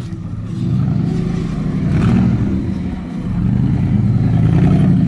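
Off-road vehicle's engine working hard under load, revving up, easing off briefly about three seconds in, then revving up again.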